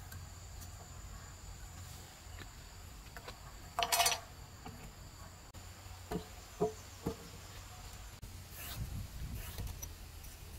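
A steady high-pitched drone of insects. About four seconds in there is a short clatter as a steel ruler is handled on the wooden planks, then three light knocks a couple of seconds later.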